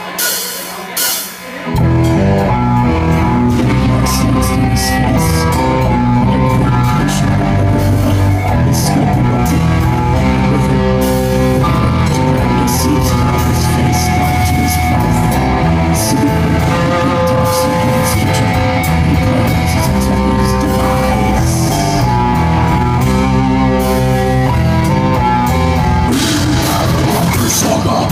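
Live rock band playing loud: a few sharp hits, then electric guitars, bass and drums all come in about two seconds in and play on hard.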